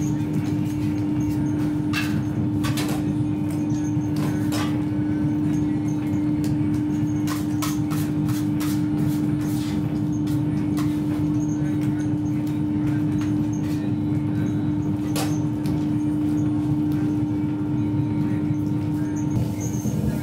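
A steady machine hum with a strong low tone, running at an even level in a working bakery. Over it come scattered sharp taps and knocks, several in quick succession about eight seconds in, from work at the dough bench.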